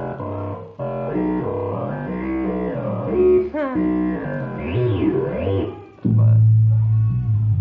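Korg Kaossilator Pro synthesizer played on its touch pad: a run of pitched notes stepping and sliding up and down, with a quick upward sweep in the middle. About six seconds in it settles onto a steady low bass note with faint wavering tones above.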